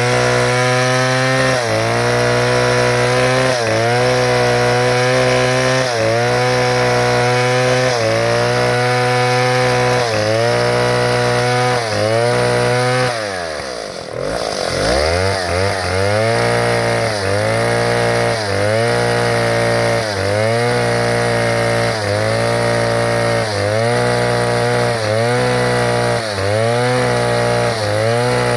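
Chainsaw running under load as it cuts wood. Its pitch dips briefly and recovers about every two seconds. About halfway through it drops sharply, nearly to idle, then winds back up to speed.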